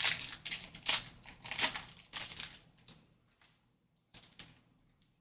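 Gold foil Panini Gold Standard card pack being torn open and crinkled in the hands: a dense crackle that is loudest over the first two or three seconds and then dies away, with one more brief rustle about four seconds in.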